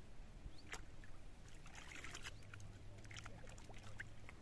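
Faint water splashing and sloshing at the lake's edge, with scattered small clicks and ticks and a short noisy splash about two seconds in.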